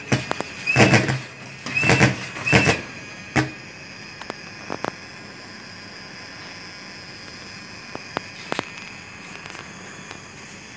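Thermal fogging machine being worked by hand to start it: three loud squeaking strokes with a rush of air in the first three seconds, then a few clicks. A steady high-pitched whine runs underneath and cuts off about eight and a half seconds in; the fogger does not fire up.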